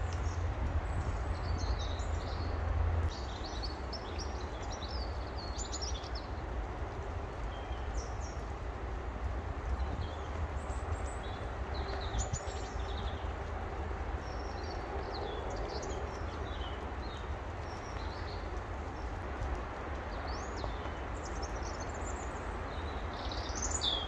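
Small songbirds chirping and twittering in short, scattered high phrases, over a steady low rumble of background noise.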